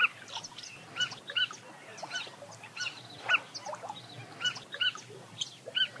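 A wild animal calling: short, arched notes repeated at irregular intervals, with faint higher chirps behind.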